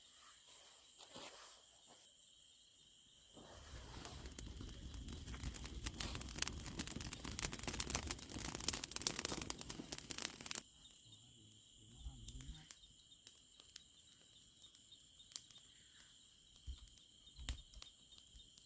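Insects chirring steadily in a high, even drone. A few seconds in, a loud crackling, rustling noise starts up and cuts off suddenly about ten seconds in.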